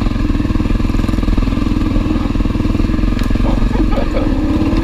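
Honda CRF250L's single-cylinder engine running steadily as the dual-sport bike rides across a leaf-covered forest floor, heard from the rider's helmet camera.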